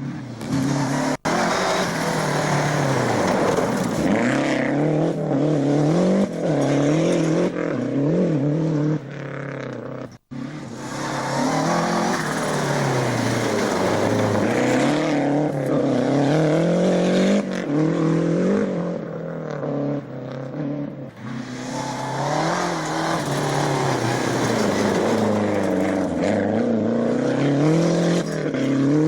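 Rally car engines at full throttle on a stage, the note climbing and dropping again and again through gear changes as the cars go by. The sound breaks off abruptly twice, about a second in and about ten seconds in, as one car's run cuts to the next.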